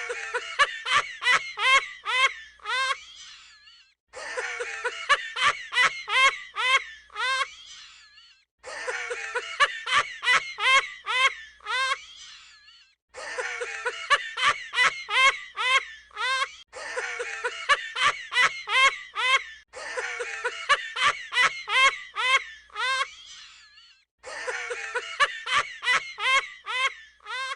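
A high-pitched laughing sound effect repeated in about seven near-identical bouts. Each bout is a fast run of rising 'ha' pulses that trails off before the next starts about four seconds later.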